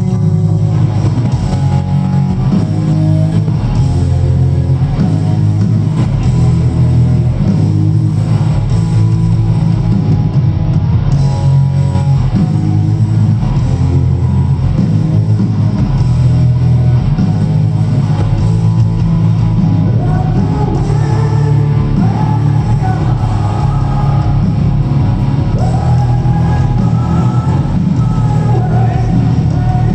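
Rock band playing live: distorted electric guitars, bass and drums, steady and loud, with a lead vocal coming in about twenty seconds in.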